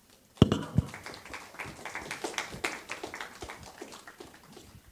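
Audience applauding, starting about half a second in and fading toward the end, with two sharp knocks just as it begins.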